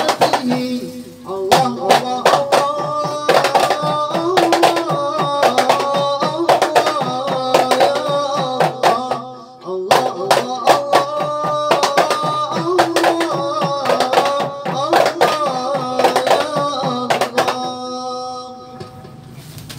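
Marawis ensemble of frame drums and hand drums beaten in a fast, dense rhythm under a man singing an Islamic devotional song through a microphone. Two long sung phrases with a brief break between them; the music dies away near the end.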